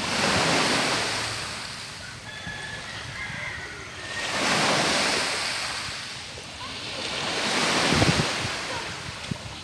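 Small sea waves breaking and washing up a pebble beach, surging three times about four seconds apart, the last surge the loudest.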